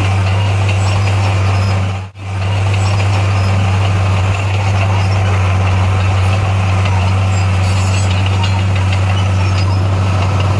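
Bulldozer's diesel engine running at a steady pitch: a deep, constant drone, with a brief dropout about two seconds in.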